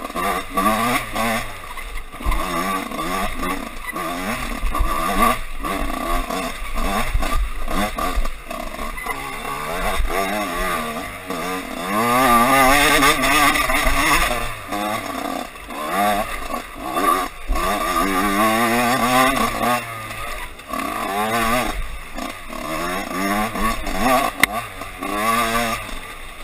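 Dirt bike engine under race riding, revving up and dropping back again and again as the rider accelerates, shifts and brakes along a rough trail.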